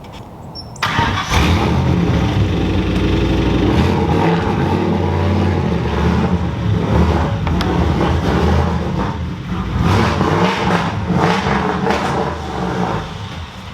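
Turbocharged Ford Mustang Bullitt 4.6L 2V V8 starting up suddenly about a second in and running with changing revs. The owner says the engine is failing with rod knock.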